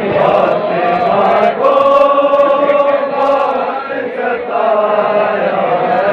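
A crowd of men chanting a noha (a Shia mourning lament) together in unison, drawing out long held notes as the massed response to a leader's line.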